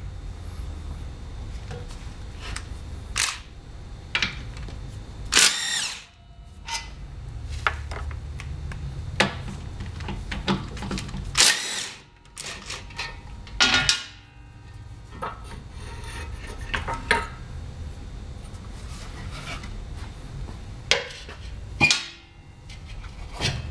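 Impact wrench spinning off a scooter's muffler mounting bolts in several short spurts, with clicks and clinks of tools and metal parts in between. A steady low hum runs underneath.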